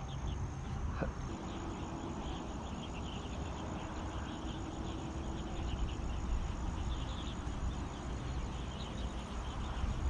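Insects chirping steadily in the background, over a low rumble of wind on the microphone.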